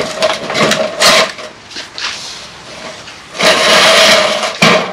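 Galvanised steel capping on top of a block wall scraping and grating against the wall as it is worked loose and slid along, in several bursts with a metallic ring. The longest burst starts about three and a half seconds in and lasts about a second.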